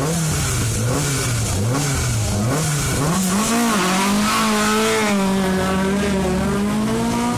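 Classic rally car's engine blipped four or five times at a standstill, then revving up as the car pulls away from the start and held at steady high revs as it drives off.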